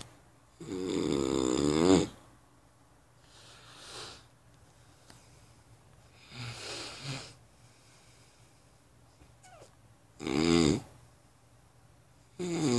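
Heavy snoring: loud snores about a second long with a wavering, vibrating pitch, one about a second in and two more near the end, with softer breaths in between.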